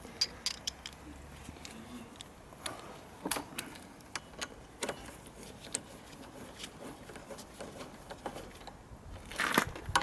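Irregular light metallic clicks and clinks of a ratchet wrench with a hex socket being fitted and turned on a motorcycle front brake caliper's mounting bolt, with louder handling noise near the end.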